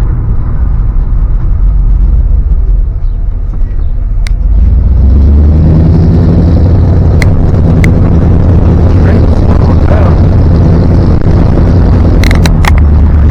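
Old Dodge pickup truck's engine and road rumble while driving, getting louder with a steady low drone from about four and a half seconds in. A few sharp clicks near the end.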